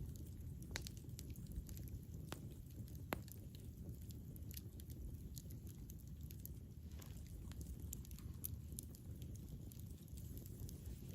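Campfire burning: a low steady rumble of flames with frequent small crackles and a few sharper pops of burning wood.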